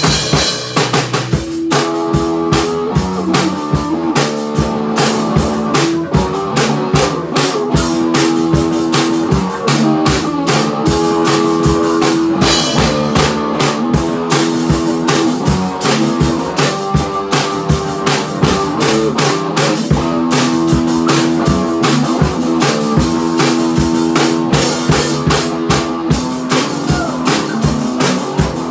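Rock band jamming live: a drum kit keeps a steady, fast beat under a repeating riff on electric bass and guitar.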